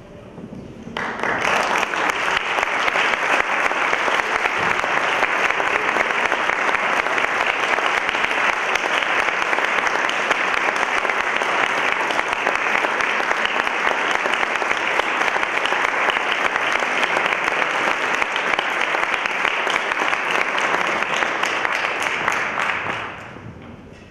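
Audience applauding steadily, starting about a second in and dying away near the end.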